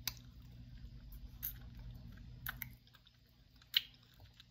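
A person chewing a mouthful of chicken and rice with wet mouth sounds, with a few short sharp clicks, the loudest near the end.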